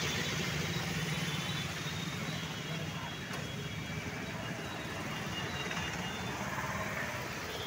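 Steady street traffic noise from passing vehicles, with no single event standing out.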